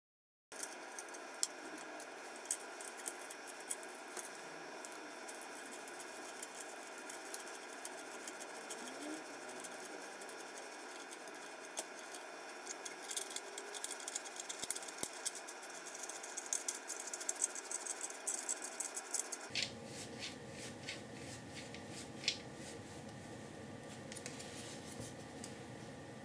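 Faint clicks and light rattling of hands screwing a steel focus-post bolt by hand through 3D-printed plastic microscope stage parts and their pulley nut, over a steady low hiss.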